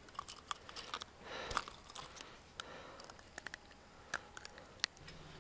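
Faint, irregular clicks and light knocks from handling a spinning rod and reel while jigging a spoon lure.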